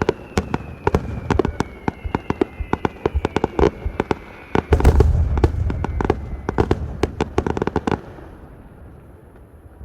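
Fireworks display: a rapid barrage of sharp crackling bangs with a thin falling whistle and a deep boom about five seconds in. The barrage stops at about eight seconds, leaving a fading rumble.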